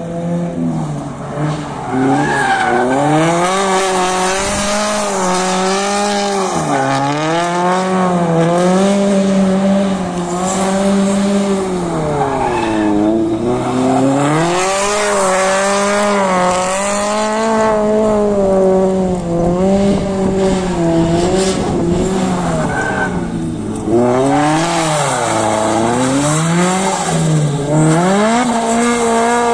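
Toyota GT86 drift car sliding through a cone course. Its engine revs rise and fall again and again through the turns, over the hiss and squeal of the rear tyres spinning and sliding.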